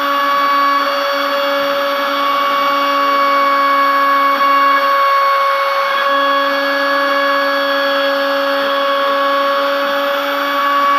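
CNC router spindle running steadily as its fine engraving bit cuts a logo into a metal sheet: a constant whine with the rough hiss of the cut. The lowest tone in the whine drops out for about a second around five seconds in.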